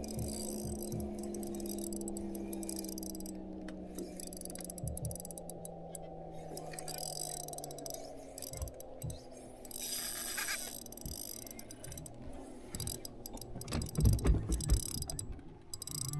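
Spinning reel wound in short spurts between rod jerks, each spurt a brief whirring, with a cluster of rod-and-reel handling knocks near the end. A steady low hum sliding slowly down in pitch runs under the first half.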